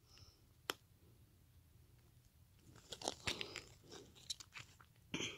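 Faint handling of a folded cardboard hang tag on a plush toy: a single tick about a second in, then a run of papery crinkles and clicks over the last two or three seconds.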